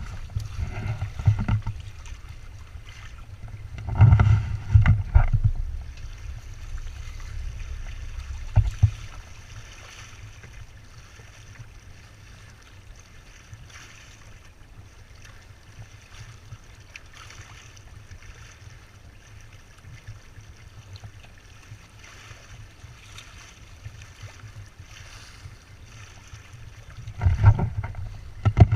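Water hissing and washing steadily along the hulls of a Windrider 17 trimaran under sail. Wind buffets the microphone in low rumbling gusts near the start, around four seconds in, and again near the end.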